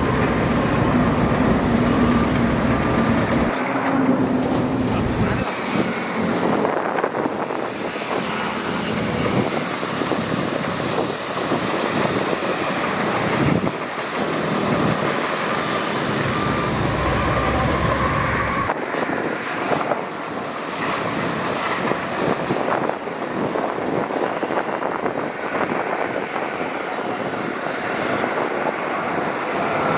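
Shantui DH17C2 crawler bulldozer working while pushing sand: its diesel engine runs steadily under load, with a continuous clatter from the machine throughout.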